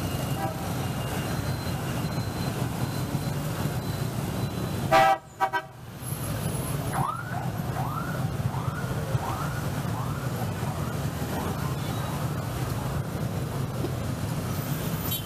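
City street traffic running steadily, with a loud short car horn honk about five seconds in and another at the very end. In between comes a run of about seven short rising whoops, each under a second, from a siren or alarm.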